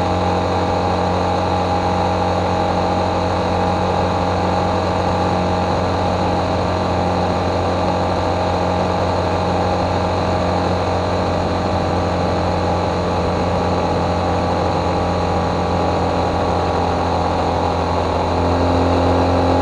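Motorcycle engine running steadily while cruising on the open road, a constant drone that gets a little louder near the end.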